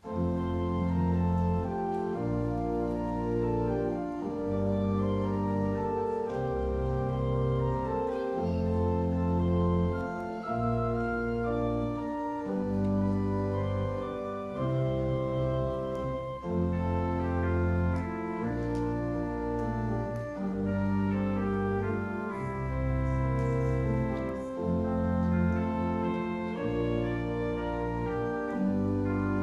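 Church organ playing the offertory: slow, sustained chords over a bass line, changing about once a second.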